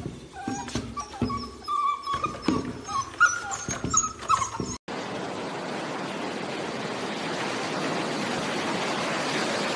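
Beagle puppies whimpering and whining in a string of short, high cries. About five seconds in it cuts sharply to a steady rushing noise.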